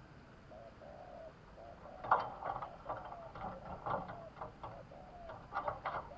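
Spotted dove cooing: a run of short, low, arched coo notes, repeating about twice a second. From about two seconds in, a series of sharp clicks and knocks sounds over the cooing and is louder than it.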